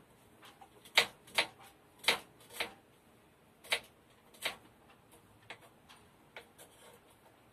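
Kitchen knife chopping an onion into small pieces on a cutting board: sharp knocks of the blade striking the board, irregularly spaced, about six loud ones in the first five seconds and a few fainter ones after.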